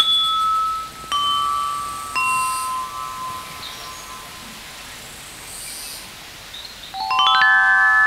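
Metal chimes struck one at a time: three single ringing notes about a second apart, each a step lower than the one before. Near the end a quick upward run sweeps across about eight chime notes, which ring on together.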